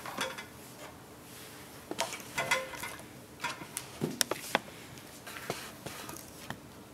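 Scattered light clicks and knocks of an oil-filled radiator heater's plastic and sheet-metal casing being handled and turned up on its end, with bunches of knocks about two seconds in and again about four seconds in.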